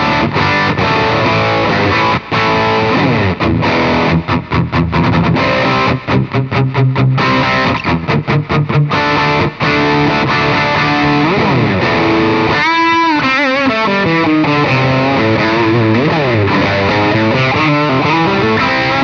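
Electric guitar played through a Caline Jaguar Classic High Gain Distortion pedal, with a heavily distorted hard-rock tone. For about the first ten seconds it plays a choppy rhythm riff with many short stops, then a lead line with wide string bends and vibrato.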